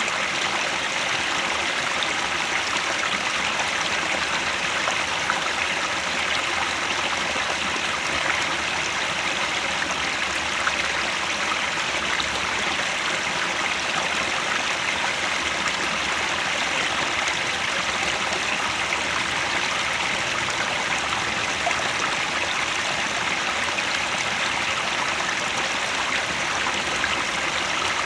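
Mountain headwater stream flowing over rocks, a steady, even rushing and splashing of water.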